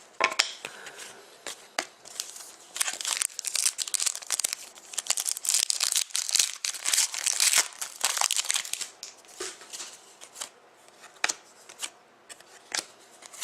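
Trading cards and their plastic and foil packaging handled close up: crinkling and rustling for several seconds in the middle, with scattered small clicks and taps before and after.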